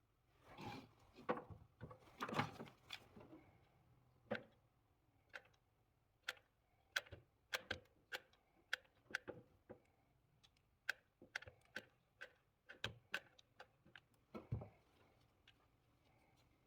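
Faint handling sounds from work on a cordless drill battery pack: an irregular run of small sharp clicks and light knocks, about one or two a second, with louder scuffing and rattling in the first few seconds and again near the end.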